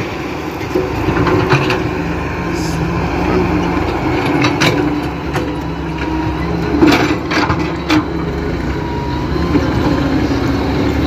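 Diesel engine of a Daewoo wheeled hydraulic excavator running under load as it digs, with several sharp knocks from the bucket and boom. The loudest knock comes about seven seconds in.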